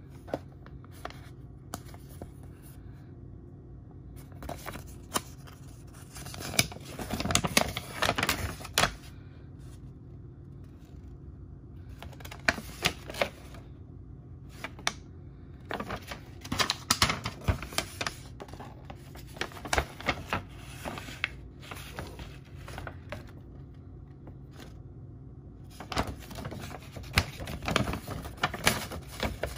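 Folded paper instruction leaflet and packaging being handled and turned over by hand. It rustles and crinkles in several irregular spells, with sharp clicks and taps.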